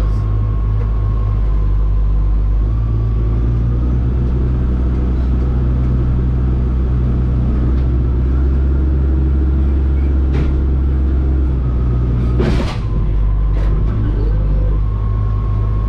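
Heavy-equipment diesel engine working hard under load while pulling on a chained tree. About three-quarters of the way through, a single sharp snap as the chain breaks, and the engine note eases right after.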